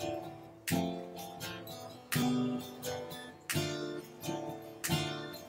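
Acoustic guitar strummed in a slow, steady rhythm: a strong chord stroke about every second and a half with lighter strokes between, the chords ringing on.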